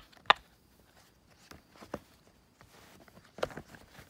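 Silicone pop-it fidget toy bubbles pressed by fingers, giving a handful of scattered sharp pops; the loudest comes a fraction of a second in and a quick cluster follows near the end.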